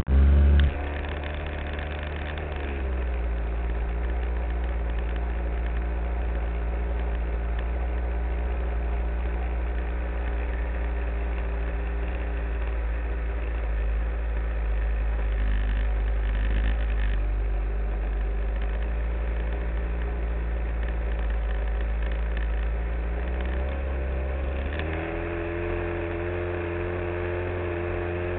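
Small single-cylinder model airplane engine running steadily close up, muffled through a waterproof camera housing mounted just behind it; its pitch steps up a little about 25 seconds in. A brief loud noise at the very start.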